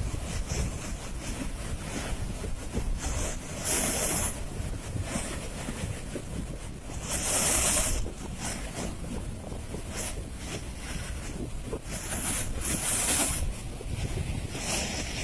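Floodwater pouring through the open crest gates of a dam spillway: a steady roar of rushing water, swelling louder and hissier three times, about four, seven and twelve seconds in.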